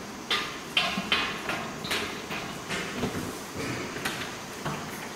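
Footsteps on an open-tread metal staircase, about two or three steps a second, loudest in the first two seconds and then fainter.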